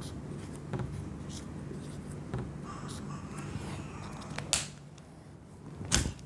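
Whiteboard marker tapping and scraping on the board as a diagram is drawn: a few short sharp clicks, the loudest near the end, over a steady low hum.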